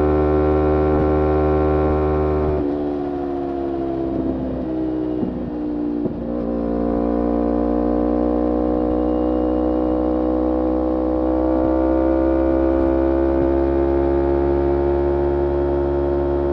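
Kawasaki Ninja 250R parallel-twin engine running through a full Graves racing exhaust. It holds a steady note, drops and wavers between about three and six seconds in, then settles and slowly climbs in pitch.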